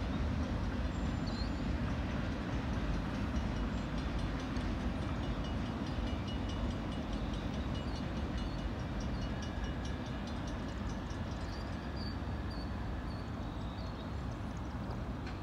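CSX mixed freight train rolling away from a grade crossing: a steady rumble of wheels on rail that slowly fades.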